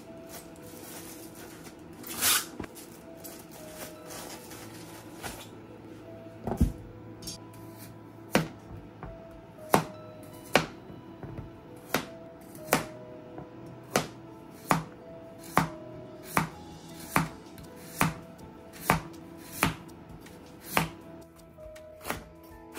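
Plastic rustling as a bunch of spinach is handled, then from about eight seconds in a chef's knife slicing whole carrots on a plastic cutting board, one cut about every second, with background music underneath.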